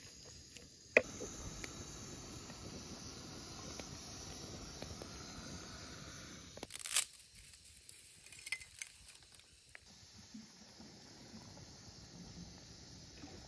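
Sauce sizzling in a frying pan over a campfire while it is stirred with a wooden spatula, with a sharp knock about a second in. After a brief louder scrape near the middle it turns quieter, with small crackles from the fire under a pot of boiling pasta.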